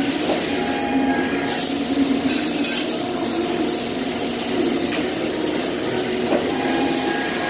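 Press brake (sheet-metal bending machine) running with a steady machine hum.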